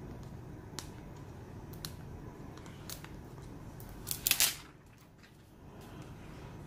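Thin protective plastic film being picked at and peeled off the back of a new smartphone: a few faint fingernail clicks, then a short, loud plastic crinkle a little after four seconds in.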